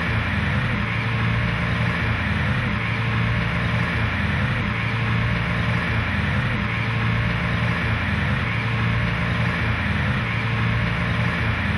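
A loud, steady rushing noise with a low hum beneath it, unchanging throughout.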